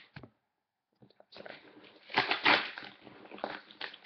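Cardboard shipping box being opened by hand: a couple of light clicks, then, about a second in, scratchy tearing and rustling of packing tape and cardboard flaps, loudest a little past the middle.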